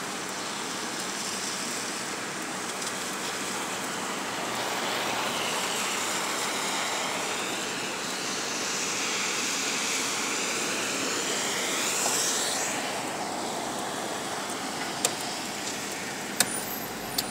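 Road noise from inside a moving car driving on a wet street: steady tyre hiss with a sweeping swell that peaks about twelve seconds in, and a few sharp clicks near the end.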